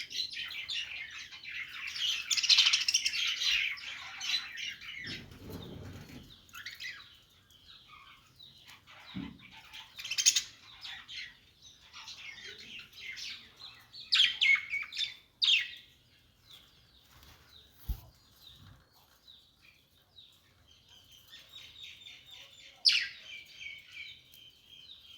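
Small pet parrots chirping and chattering. A dense burst of chatter at the start thins into scattered chirps, with a few sharp, loud calls in the middle and a stretch of rapid warbling near the end.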